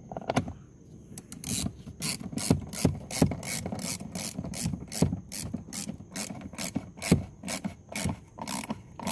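A hand ratchet clicking in a steady run, about three clicks a second, as a door-panel screw is driven in.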